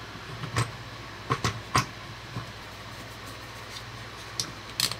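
A handful of short, sharp clicks and knocks from a plastic dust-collection cover being worked and lined up into its slot under a router, the loudest a little under two seconds in, over a low steady hum.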